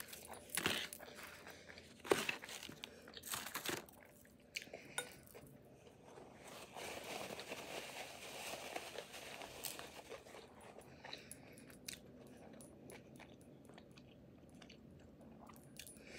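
A person biting and chewing food close to the microphone. There are several crunchy bites in the first four seconds, then softer chewing with many small wet clicks.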